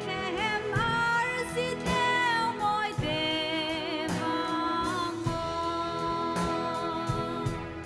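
A woman singing solo through a microphone over instrumental accompaniment, holding some notes with a wavering vibrato.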